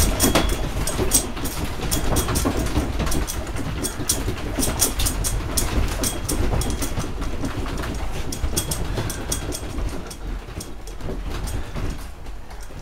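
A room's contents rattling and clattering in strong earthquake shaking: a low rumble under rapid irregular clicks and knocks, easing somewhat near the end.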